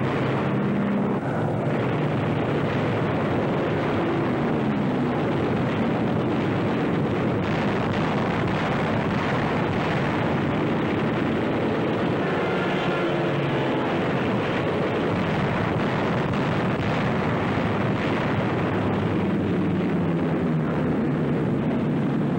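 Propeller aircraft engine drone under a loud, steady rushing noise; the drone's pitch swings up and down about twelve seconds in.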